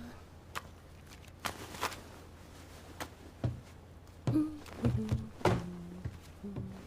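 Several soft thuds and knocks at irregular intervals, bunched together and loudest from about four to five and a half seconds in, over a steady low hum.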